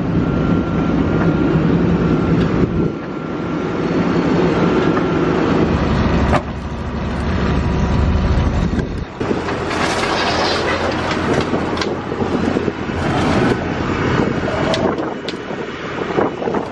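Heavy diesel machinery of a tracked tile plow running steadily. Scattered knocks and clatter come through more in the second half, as large corrugated plastic drain tile is handled and fed into the plow's boot.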